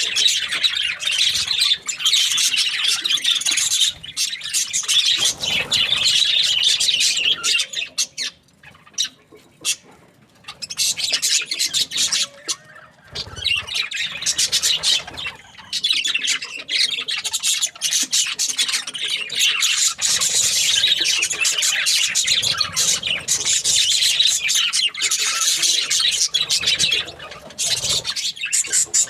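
Budgerigars chirping and chattering continuously, a dense high-pitched twittering with squawks, easing into a lull for a couple of seconds about eight seconds in before picking up again.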